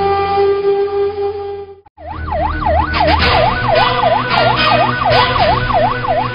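A held steady tone for the first couple of seconds breaks off in a brief drop. Then a police vehicle's siren wails in quick up-and-down sweeps, a few a second, over rough vehicle noise.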